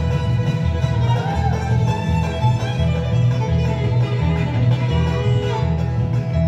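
Live bluegrass band playing: a fiddle carries the lead line over the rhythm of an acoustic guitar and an upright bass.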